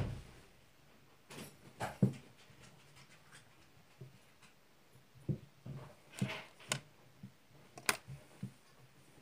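Scattered light knocks, taps and scratching as small candles are handled and fitted into a cardboard box.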